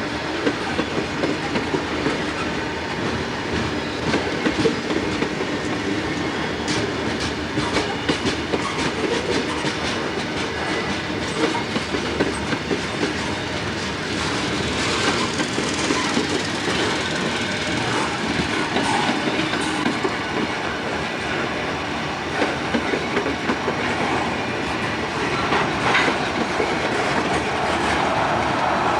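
A freight train's cars rolling past, wheels clicking over rail joints, with brief wheel squeals now and then.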